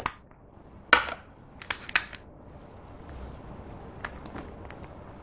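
A plastic lipstick case being opened by hand. There is a click, then a short scraping slide as the clear cap is pulled off, two sharp plastic clicks, and a few faint ticks later on.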